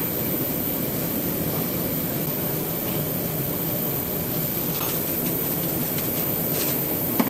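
Steady low rushing noise, even in level, with a few faint clicks; it cuts off abruptly at the end.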